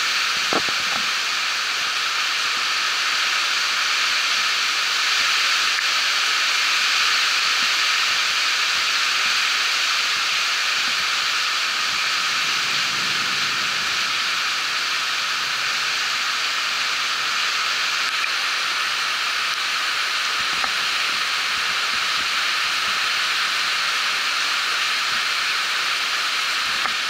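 Heavy storm rain pouring down, a steady unbroken hiss. A small click sounds about half a second in.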